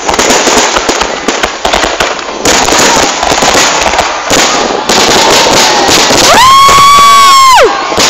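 Fireworks going off in a dense run of bangs and crackles. About six seconds in, a loud held horn-like tone rises in, holds for about a second and a half, then drops away.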